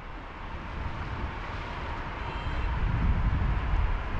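City road traffic on a rain-wet street: a steady hiss with a low rumble of passing vehicles, growing louder over the first couple of seconds.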